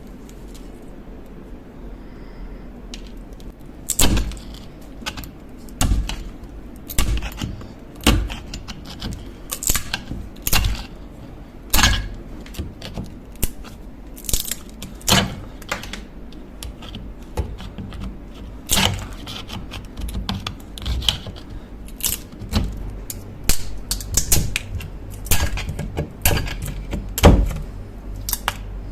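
Irregular metallic clicks and knocks from tools and metal parts being handled on a workbench, starting about four seconds in, over a low steady hum.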